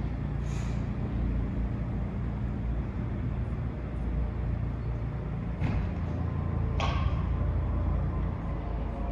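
A road vehicle's engine running with a steady low rumble, with a short hiss about half a second in and two brief sharp noises a little past the middle.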